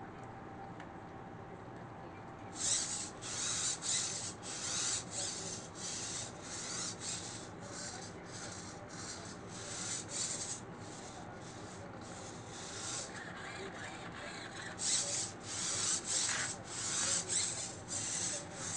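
Servo-driven quadruped robot moving through its demo program: rhythmic rasping bursts about twice a second, in two runs with a pause of a few seconds in the middle.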